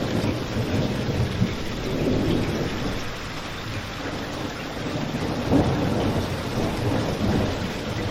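Rain and crackling fireplace ambience: a steady rushing haze of rain with a low rumble underneath, and scattered crackles and pops from the fire, the loudest about five and a half seconds in.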